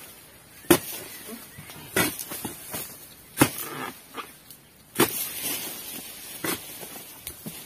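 Long-handled oil palm harvesting chisel (Bidor dodos) chopping into the crown of a low oil palm: five sharp strikes, about one every second and a half, with lighter knocks between them.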